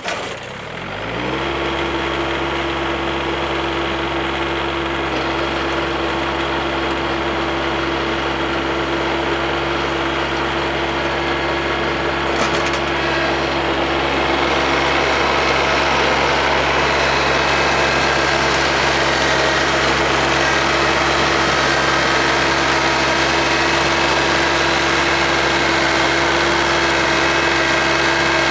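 Kioti CS2210 compact tractor's three-cylinder diesel engine comes up to speed in the first second or so, then runs steadily at a constant pitch, driving a PTO snowblower. It grows a little louder from about halfway as the tractor moves in close and the blower throws snow.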